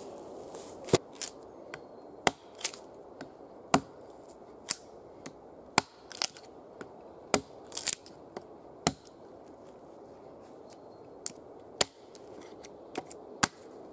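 Axe blade chopping into a log, cutting a notch: sharp separate strikes about once a second, a pause of a couple of seconds about two-thirds of the way through, then a few more strikes near the end.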